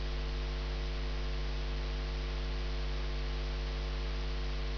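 Steady electrical mains hum, a low drone that holds even throughout.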